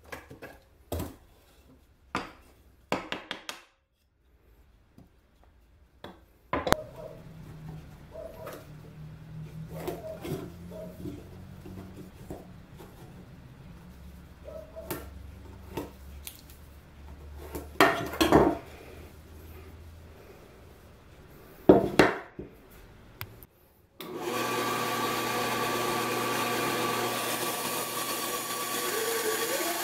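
Plywood and tools being handled on a workbench: scattered knocks and clicks, faint scratchy marking strokes, and two loud sharp knocks. About six seconds before the end, a JIB band saw switches on and runs with a steady hum.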